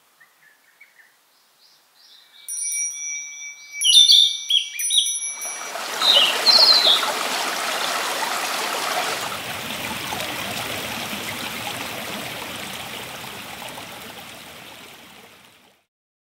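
Birds chirping in short calls, then a small stream rushing over rocks fades in about five seconds in, runs steadily, and fades out near the end.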